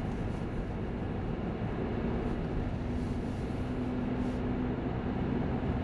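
Car on the move, heard from inside the cabin: steady engine and tyre noise, with a steady hum coming in about two seconds in.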